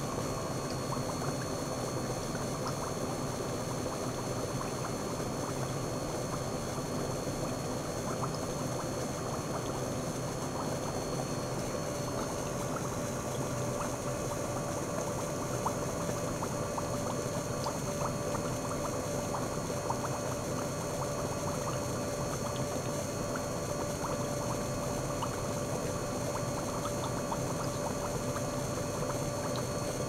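Small gear pump circulating water into a stainless steel bowl: a steady bubbling, splashing stream, the pump pushing liquid and air alternately, with small crackles and a few steady whining tones under it. A faint high tone drops out about twelve seconds in.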